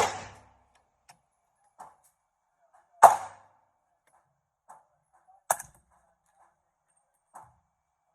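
Suppressed 8-inch 300 Blackout firing subsonic 200-grain Sellier & Bellot rounds through a CAT JL suppressor: sharp shots at the start, about three seconds in and about five and a half seconds in, the last one quieter. Fainter short clicks fall between the shots.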